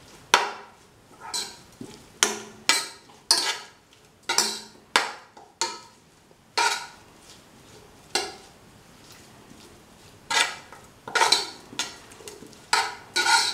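A spoon knocking and scraping against a cooking pan while stirring, in about a dozen sharp, irregular strokes that ring briefly and come sparser in the middle.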